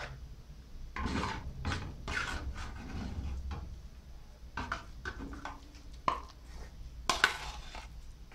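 Wooden spoon scraping and knocking against a metal pan as thick coconut candy is spooned out, in an irregular run of scrapes with a few sharper knocks near the end.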